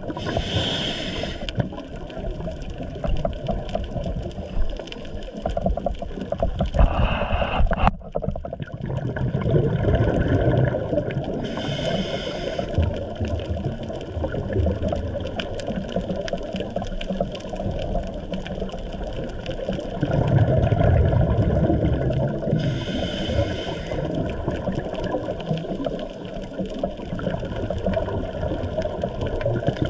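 Scuba diver breathing through a regulator underwater. Three hissing inhalations come about 11 seconds apart, near the start, about 12 seconds in and about 23 seconds in, with a low bubbling rumble of exhaled bubbles between them.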